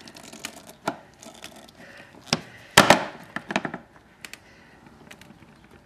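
Hard plastic clicking and creaking as a flathead screwdriver pries the fender tabs of a Peg Perego John Deere ride-on tractor, with a louder snap about three seconds in as a tab pops loose, and a few lighter clicks after.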